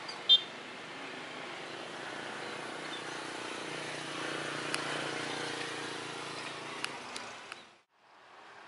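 Motor vehicle engines running and passing on a road, including motorcycles. The sound swells toward the middle and fades, with a brief high chirp right at the start and a few sharp clicks. It cuts out abruptly near the end.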